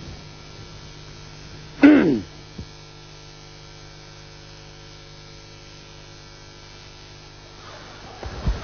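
Steady low hum throughout, with one short falling vocal cry about two seconds in and a few low knocks near the end.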